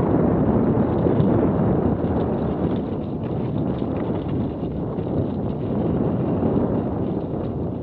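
Steady wind buffeting on an action camera's microphone as a mountain bike rolls down a dirt singletrack. Tyre rumble and faint clicks and rattles from the bike run through it.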